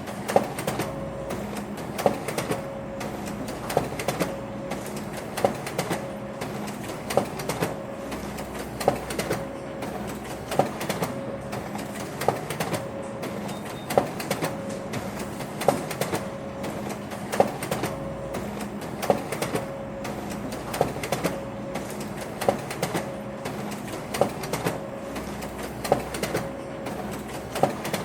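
Office printer running: a steady mechanical hum with a regular clatter of clicks, a louder knock about every second and a half to two seconds.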